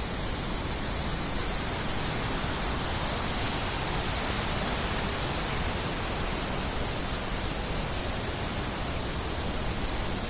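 Fast-running water rushing steadily, an even, unbroken roar with no distinct splashes.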